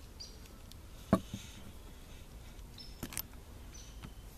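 Sharp clicks from a black-powder revolver being handled during loading: one loud click about a second in, a quick double click about three seconds in, and a few faint small ticks.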